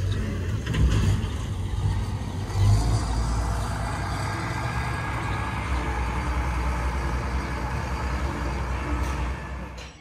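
Combine harvester running steadily, a low engine rumble that swells briefly about three seconds in and fades out near the end.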